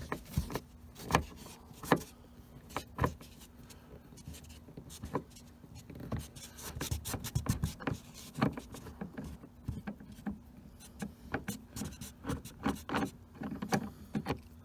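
Hand screwdriver backing a screw out of a car door trim panel: irregular light clicks and scrapes of the tip against the screw head and the plastic around it.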